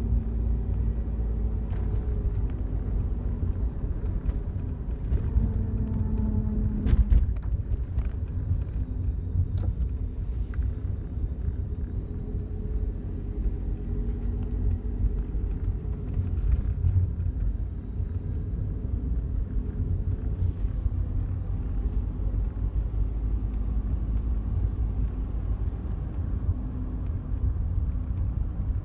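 Inside a Daihatsu Wake's cabin on the move: steady road and engine rumble, with scattered short rattles and clicks, the loudest about seven seconds in. The rattles are the buzzing from the dash in front of the passenger seat, a fault that appeared within a month of delivery.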